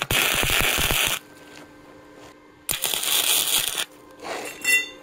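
Harbor Freight wire-feed welder laying tack welds on square steel tubing: two bursts of crackling arc, each about a second long, the first at the start and the second just under three seconds in.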